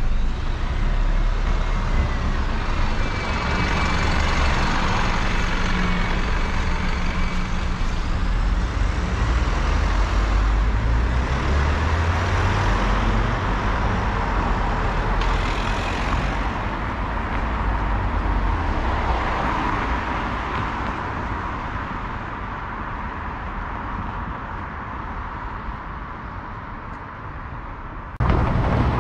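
Road traffic going through a town junction: car engines and tyre noise passing close by, with one vehicle speeding up and driving off about halfway through. The traffic noise dies down over the last several seconds.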